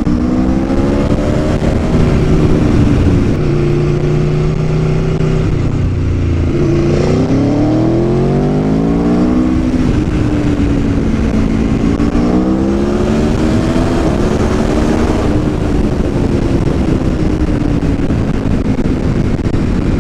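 Aprilia Tuono V4 1100's V4 engine under way. Its pitch climbs and drops with throttle and gear changes, with a strong rise about seven seconds in.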